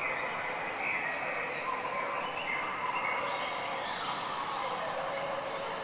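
Tropical forest ambience: a steady hiss of insects with high bird calls over it.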